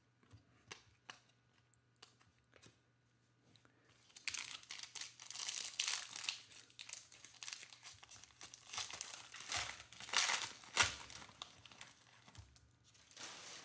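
Foil wrapper of a Panini Mosaic basketball hobby pack crinkling and tearing as it is ripped open by hand. After a few faint taps, the crackling starts about four seconds in, with its loudest rip near the end, then a last short crinkle.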